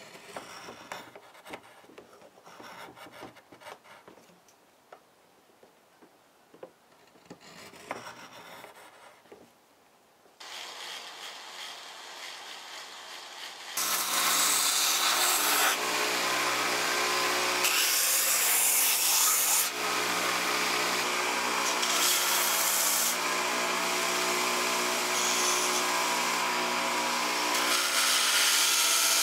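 A carving knife shaves wood from the bowl of a wooden ladle in short, uneven scraping strokes. About halfway through, a belt sander runs steadily with a constant hum as the ladle is pressed against the moving belt. The sander is much louder than the carving.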